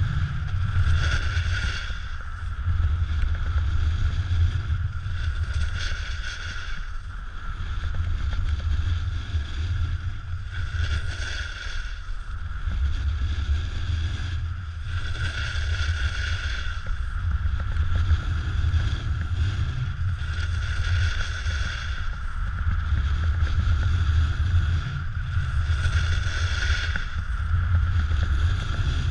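Wind buffeting an action camera's microphone during a snowboard descent, with the board's edges scraping over packed snow in swells every five seconds or so as it turns.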